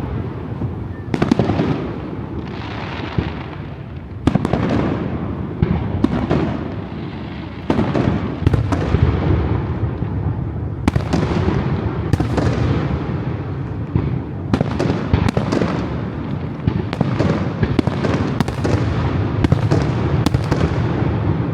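Aerial fireworks display: a rapid barrage of shell bursts, many sharp bangs in quick succession over continuous crackling and rumbling, with no break.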